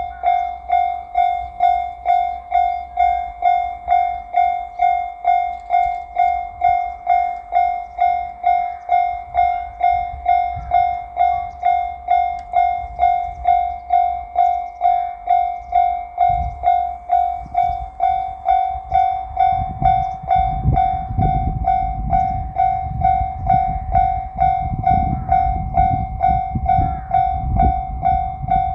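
Japanese level-crossing alarm ringing steadily, a little under two strokes a second. From about twenty seconds in, the low rumble of the JR Shikoku 8000 series limited express electric train builds under the bell as it nears and passes.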